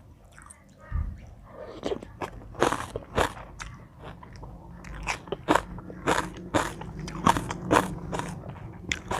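A person eating spicy Thai seafood papaya salad close to the microphone: a run of crisp crunching bites and chewing, about a dozen sharp crunches.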